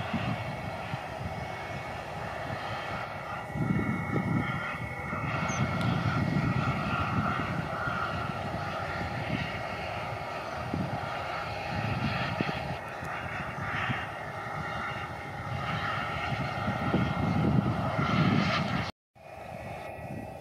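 Jet engines of an Airbus A321 airliner running as it rolls along the runway: a steady whine over a broad rumble that swells louder a few times. The sound drops out briefly near the end.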